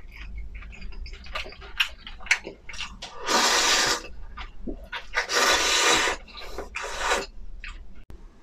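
Instant noodles being slurped in three loud noisy pulls, the first two lasting nearly a second each and the third shorter, between wet chewing and mouth clicks close to the microphone.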